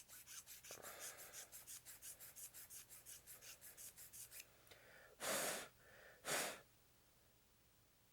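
A small hobby file rasping on a plastic model kit part in quick, even strokes, about five a second, for four seconds or so. Then two short puffs of breath blow the filing dust off the part.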